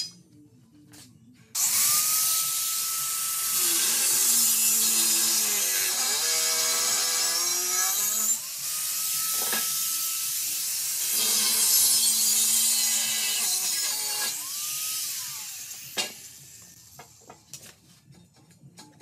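Corded angle grinder cutting through a steel tube of an old bed frame: a loud abrasive screech over a steady high motor whine that sags in pitch as the wheel bites. It starts about a second and a half in and winds down a few seconds before the end.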